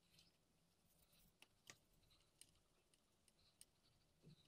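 Near silence: faint room tone with a few soft, scattered ticks.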